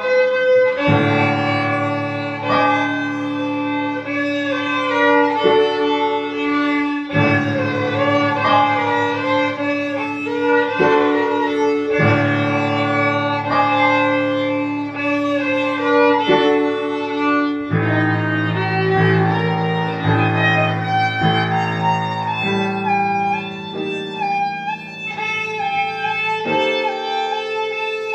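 A violin played with the bow: a quick, busy melody over lower held notes that change every few seconds.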